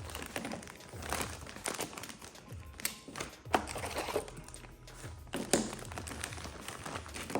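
Engine lifters being handled and set into a container, giving scattered metal clicks and clinks, a few sharper knocks among them, over quiet background music.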